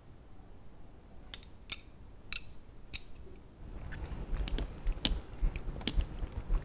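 Wooden chopsticks clicking and tapping as they pick sashimi from a woven bamboo tray: single sharp clicks at first, then a quicker run of taps after about four seconds.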